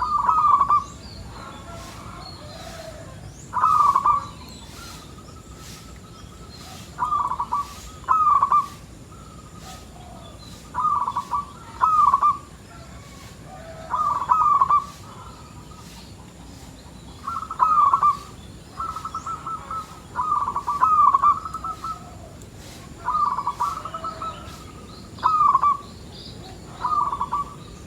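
Zebra dove (perkutut) cooing over and over, each a short phrase of rolling notes, repeating every two to three seconds. Fainter high chirps from other birds sit behind it.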